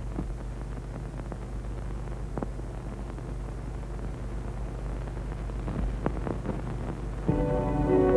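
Steady low hum and hiss of an old optical film soundtrack, with a few faint crackles. About seven seconds in, background film music enters with long held notes.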